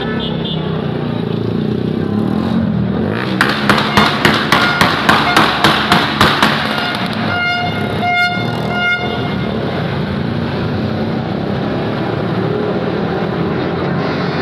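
Street traffic running past, with vehicles driving by. A few seconds in comes a quick run of about ten sharp bangs, roughly three a second, and just after it a vehicle horn toots a few times.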